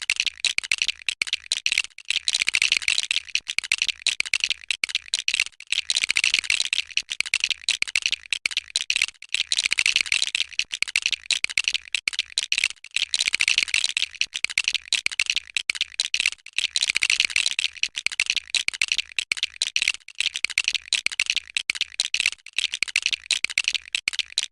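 Plastic LEGO bricks clicking and rattling in a dense, continuous stream of sharp clicks that swells and eases every three or four seconds.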